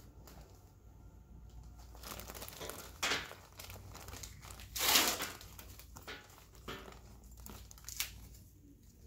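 Crinkling and rustling of gauze and gloved hands blotting a fresh surgical wound on the ear, in irregular rustles with the loudest about three and five seconds in.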